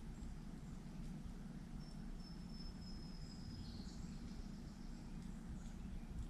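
Faint outdoor backyard ambience: a steady low rumble, and about two seconds in a thin high-pitched note held for about a second and a half, dipping slightly in pitch at the end.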